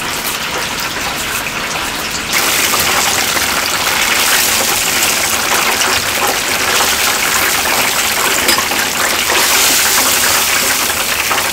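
Tap water running steadily, growing louder about two seconds in.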